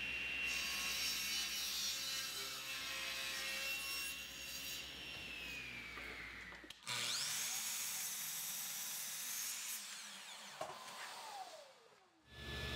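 Table saw ripping white oak boards: the blade runs with a high whine that drops in pitch as it is loaded by the cut. After a break a saw cuts again, and near the end its blade spins down with a falling whine.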